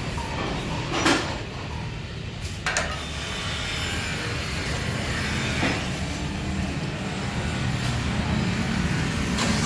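A vehicle engine idling with a low, steady rumble, with a few sharp knocks spread through.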